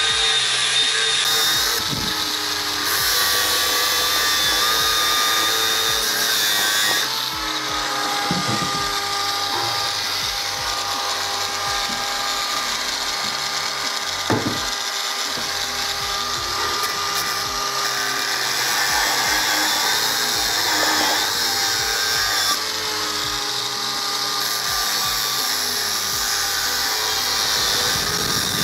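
Angle grinder with a cut-off disc cutting into the steel of a compressor air receiver tank: a steady high whine with the rasp of the disc in metal. There is a sharp click about halfway through.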